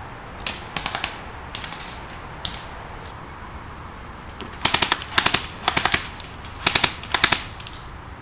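Airsoft rifles firing: a few single shots and short strings in the first couple of seconds, then five quick full-auto bursts from about halfway on, each a rapid rattle of sharp clicks.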